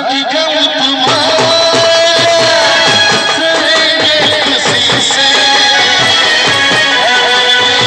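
Live Indian band music: amplified singing over clarinet and a steady drum beat, with one long held note about a second in.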